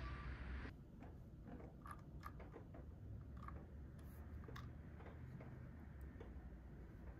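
A low steady rumble cuts off under a second in, leaving faint, scattered light clicks and taps, a couple a second at uneven intervals.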